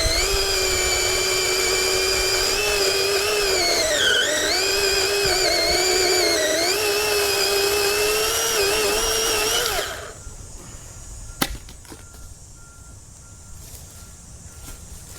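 Greenworks 40V brushless cordless chainsaw running at full speed with a steady electric whine, dipping in pitch twice as the motor is loaded in the cut. It stops abruptly about ten seconds in, and a single sharp click follows about a second later.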